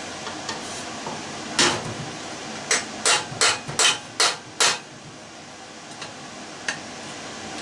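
Hammer striking the metal parts of a hot tub pump motor: one blow, then a quick run of six, about two or three a second, to knock loose a piece wedged inside.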